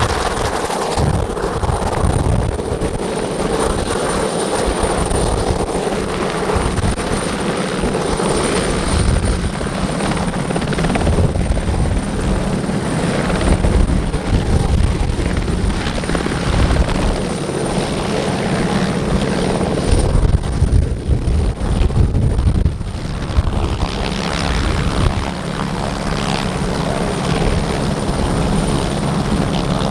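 Sud Aviation Alouette II helicopter running close by, its main rotor chopping steadily over the thin high whine of its Turbomeca Artouste turboshaft engine as it comes in to land.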